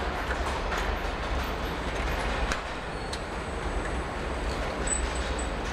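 Steady machinery din of a car assembly line: a constant low hum and rumble under an even hiss, with a few faint clicks and knocks.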